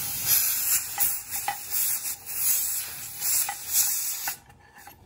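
Steam hissing out of the open vent pipe of a Mirro 22-quart pressure canner, with a few light metal clinks as the weighted pressure regulator is fitted over it. The hiss cuts off abruptly about four seconds in, when the weight seats and seals the vent so the canner can start building pressure.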